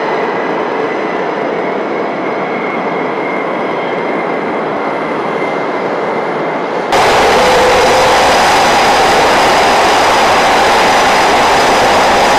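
EA-18G Growler's twin turbofan jet engines running at idle, a steady jet noise with a thin high whine. About halfway through it cuts abruptly to louder, fuller jet engine noise.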